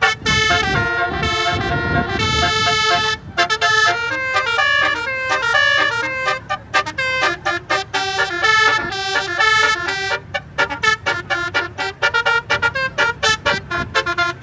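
Basuri musical bus horn playing a tune: several horn tones stepping up and down in pitch note by note, with a brief break a few seconds in and quick short toots in the latter part.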